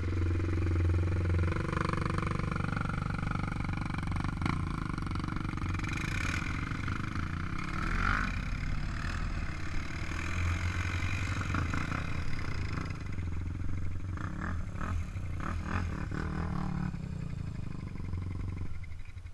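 ATV engines running at low speed, the throttle rising and falling in pitch as the quads pick their way along a muddy trail.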